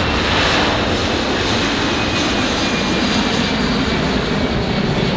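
Boeing C-17 Globemaster III's four turbofan jet engines at takeoff thrust as the transport lifts off and climbs out. The jet noise is a steady, loud rush.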